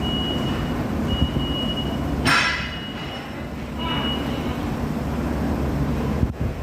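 Industrial refrigeration machinery running with a steady low hum, a thin high tone coming and going over it. A brief loud rushing burst about two seconds in.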